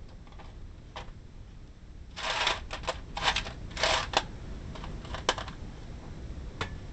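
Rummaging through a drawer of loose nuts and small hardware: a few scattered clicks, then about two seconds in, a couple of seconds of quick rattling and clattering as the parts are stirred.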